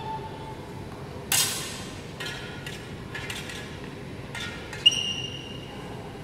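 Steel sparring swords and bucklers clashing in sword-and-buckler fencing: a series of about five sharp metal strikes a second or so apart, the loudest near the end ringing briefly.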